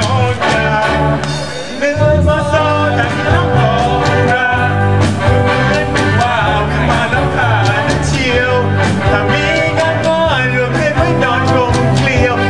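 Loud song with a singer over bass and drums, keeping a steady beat.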